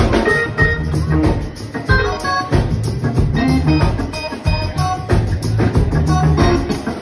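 Hammond organ played through a Leslie speaker, taking a funk solo of quick short notes at changing pitches over a live band with steady drums.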